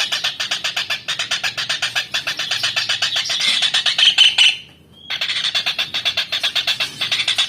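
Kingfisher (tengkek udang) calling in a fast, chattering run of sharp high notes, about ten a second, broken by one short pause about two-thirds of the way through.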